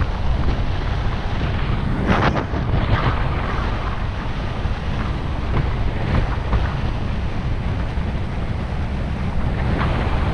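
Vehicle on the move: a steady low rumble of engine and tyres with wind on the microphone, and a few brief knocks about two and three seconds in.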